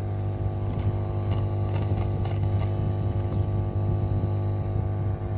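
Steady electrical mains hum: a low drone near 100 Hz with a row of even overtones above it, unbroken throughout.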